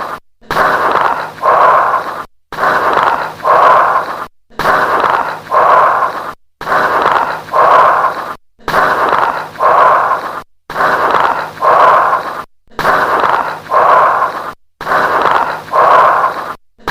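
Bronchial breath sounds heard through a stethoscope, with late-inspiratory crackles: a harsh breath in and breath out repeating about every two seconds, each cycle followed by a short silent gap.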